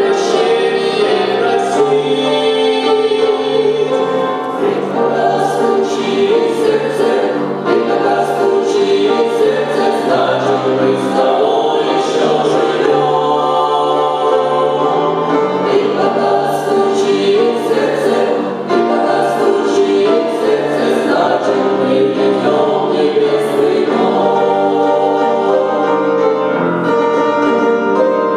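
Church choir singing a Christian song, many voices together.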